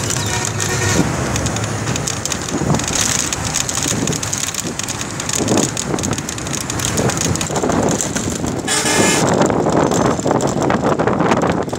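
Steady rumble and rushing noise of a moving vehicle heard from on board, with wind on the microphone. A brief louder hiss comes about nine seconds in.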